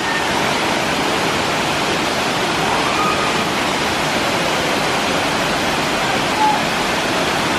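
Dunn's River Falls cascading over wide terraced rock: a loud, steady, even rush of falling water.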